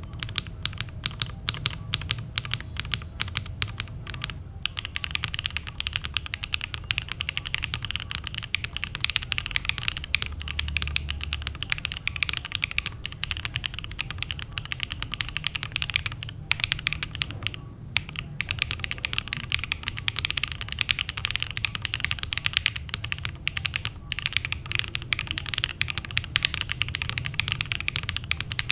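Continuous fast typing on a mechanical keyboard fitted with Gateron Type R switches (PA66 housings, POM stems, 3 mm travel), their factory pre-lube cleaned off. Dense, irregular keystroke clacks, with a brief pause about four seconds in.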